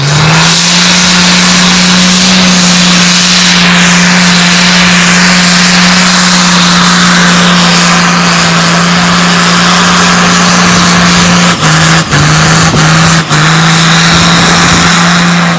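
Diesel pickup truck doing a stationary burnout: the engine is held at steady high revs while the rear tyres spin, with loud hissing tyre and exhaust noise. Its note drops out briefly three times near the end.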